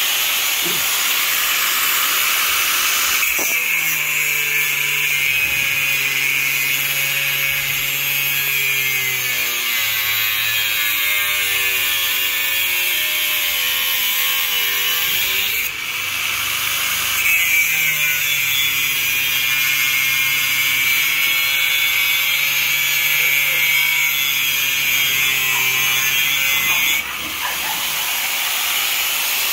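Handheld electric angle grinder with a cutting disc cutting through steel angle bar, with a steady high whine. It cuts in two long stretches of about twelve and ten seconds, the sound changing while the disc is in the steel, and spins freely in between and at the start and end.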